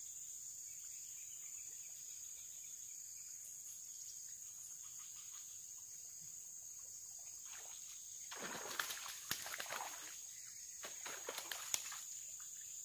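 Steady high-pitched insect chorus, with two bouts of splashing in the water: the first, about eight seconds in, lasts around two seconds, and a shorter one follows near the end.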